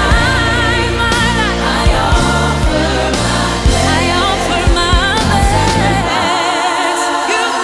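Background music in a gospel/worship style: singing over a band. The bass drops out about six seconds in.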